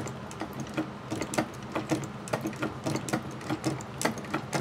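1895 Singer 29-2 patcher sewing machine stitching through leather: a steady, even clatter of needle strokes at about three clicks a second.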